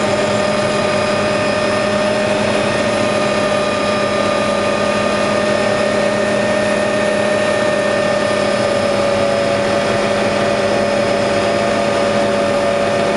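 Helicopter engine and rotor running steadily in level flight, heard from inside the cabin as a constant loud drone with a steady whine over it.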